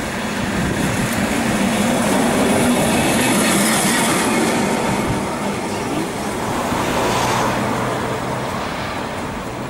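Lisbon Remodelado tram, a vintage wooden-bodied car on a modern truck, passing close by with its steel wheels running on the rails. The sound swells to its loudest about three to four seconds in as the tram goes by, then eases off.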